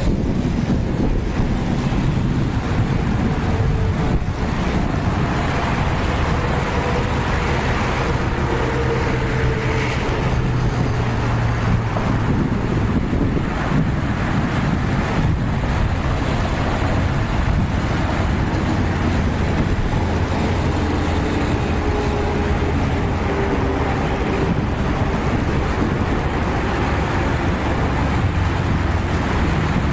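Steady vehicle noise: engine hum and road rumble, with faint engine tones drifting slowly up and down in pitch.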